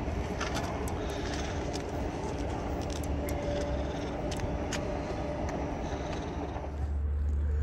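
Long Island Rail Road train running away down the tracks: a steady low rumble with scattered sharp clicks, and a faint thin whine about halfway through.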